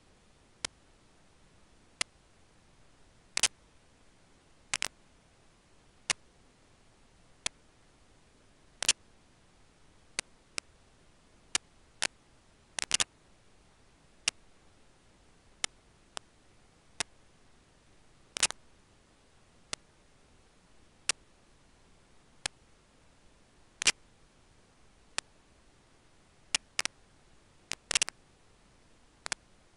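Sharp single clicks at a fairly regular pace of about one every second and a half, with extra clicks slipped in between some of them, over a faint steady hiss.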